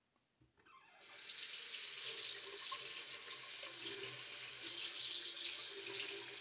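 Bathroom sink faucet turned on about a second in, its stream of running water splashing steadily over a fountain pen nib section held under it to rinse out ink.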